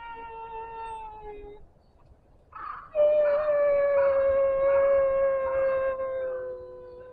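A man wailing as if crying, in long held cries. The first slowly falls in pitch and fades out about a second and a half in. A short sobbing breath follows, then a second, louder wail that sinks a little and fades near the end.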